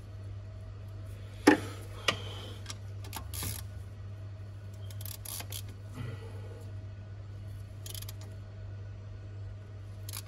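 Metal hand tools clicking and knocking against the timing belt tensioner pulley and camshaft sprocket of a VW 2.0 TDI engine while the timing belt is fitted. One sharp click comes about one and a half seconds in and another half a second later, then scattered lighter clicks and rattles, over a steady low hum.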